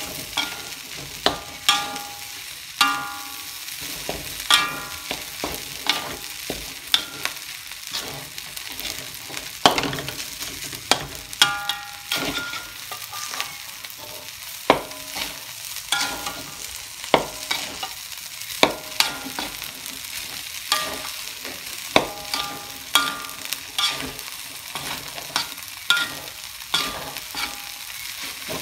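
Nasi goreng being stir-fried in a steel wok: a steady sizzle under frequent, irregular clanks and scrapes of a metal spatula against the wok, about one a second, some of them ringing briefly.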